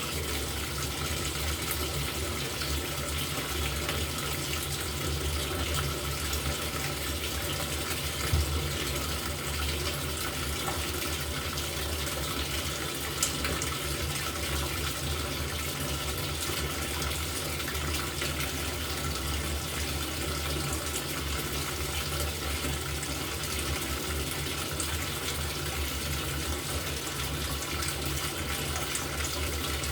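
LG top-loading washing machine filling its tub with water: a steady rush of running water over a low hum. Two brief clicks come about eight and thirteen seconds in.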